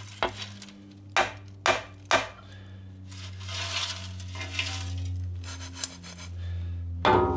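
Scrap copper windings clinking and rattling as they are handled: four sharp clinks in the first two seconds, then a stretch of shuffling and rustling, with a steady low hum underneath.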